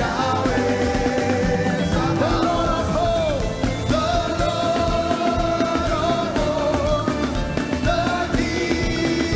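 Live praise music: a band with a steady beat and voices singing, with held notes.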